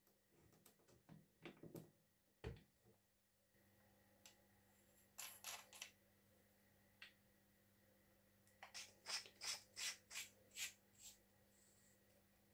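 Light clicks from the parts of a hand-cranked two-speed breast drill as it is handled and adjusted: a few scattered clicks, then a run of about eight quick clicks near the end.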